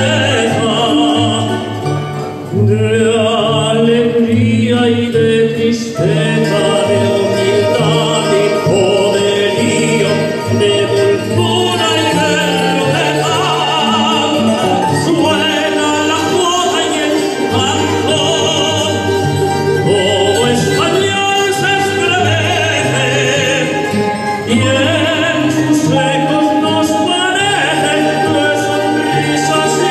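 A man singing solo into a microphone, holding long notes, over instrumental accompaniment with a moving bass line.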